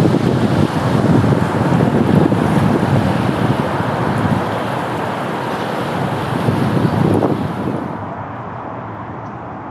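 Wind buffeting the microphone, a gusty rumble that eases and grows duller about eight seconds in.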